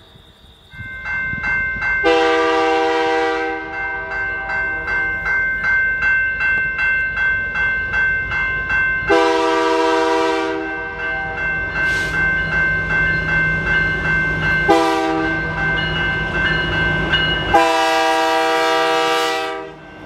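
Canadian Pacific diesel freight locomotive's multi-chime air horn sounding the grade-crossing signal: long, long, short, long. The chord wavers and pulses between the loudest blasts, and the locomotive's engine rumble rises as it passes near the end.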